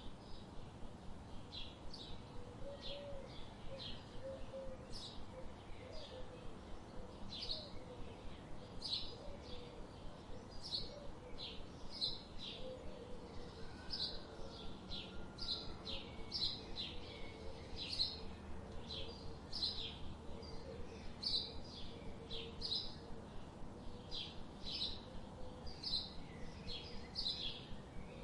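Small birds chirping: a steady run of short, high chirps repeated about twice a second, with a faint low warbling underneath.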